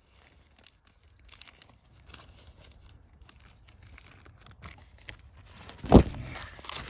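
Rustling and crackling of leaves and twigs as someone pushes back out through hedgerow vegetation. It gets louder towards the end, with one sharp loud crunch about six seconds in.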